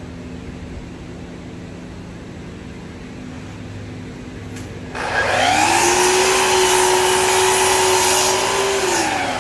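Low steady hum, then about five seconds in a sliding compound miter saw's motor spins up with the dust extractor's rush, runs at a steady pitch through a cut in plywood, and starts winding down near the end.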